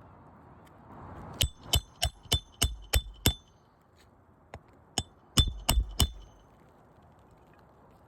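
A hammer striking a steel roof snake, driving roofing nails back in under a lifted shingle tab: seven quick ringing metallic blows about three a second, a pause, then four more in quick succession.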